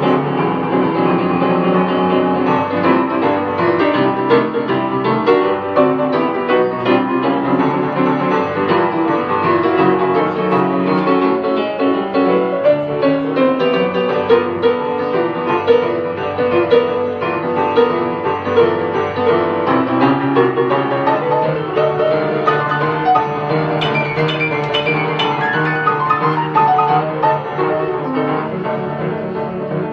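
Upright piano played solo: a boogie piece, notes and chords going continuously in a steady rhythm.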